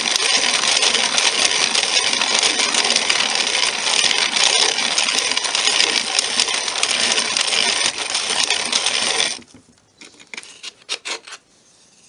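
Starbucks hand-cranked coffee grinder grinding beans at a fine, near-espresso setting: a steady, dense crunching rasp that stops abruptly about nine seconds in. A few light clicks follow as the wooden grounds drawer is pulled out.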